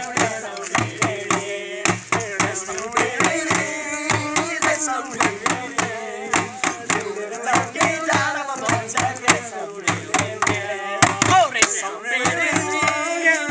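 Male voices singing to a guitar over an improvised beat: a stick struck on a plastic jerrycan and a plastic bucket played as a drum, a steady run of sharp hits and low thumps.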